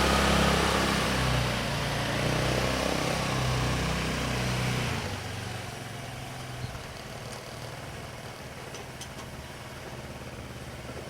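A 150 cc ATV's single-cylinder engine running with a slightly wavering pitch, then dying away about five seconds in, leaving only faint background noise.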